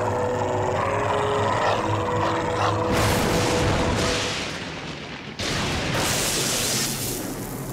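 Cartoon soundtrack: brass-led music with held notes. About three seconds in, a loud rushing hiss takes over and fades. About five seconds in comes a sudden, loud, crackling electric zap: a cartoon lightning-strike sound effect.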